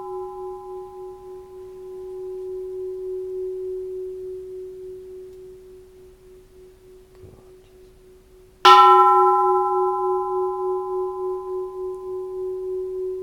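Japanese bronze Buddhist temple bell, struck lightly, ringing with a low hum that pulses slowly as it fades, over higher overtones that die away sooner. About eight and a half seconds in it is struck again, a little harder, and rings on.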